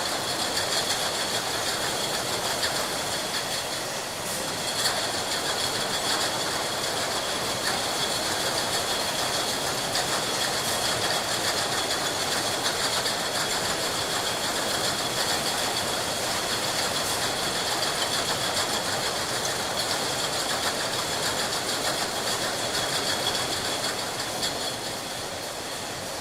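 Glass bottle factory production line running: a steady mechanical din with glass bottles clinking together on the line, and a few sharper knocks now and then.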